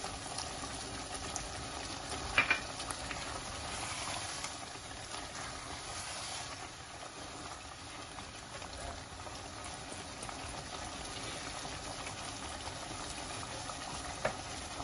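Chicken korma masala simmering in an open pot: a steady bubbling sizzle from the sauce, whose oil has separated after frying down. There is a sharp tap about two seconds in and another near the end.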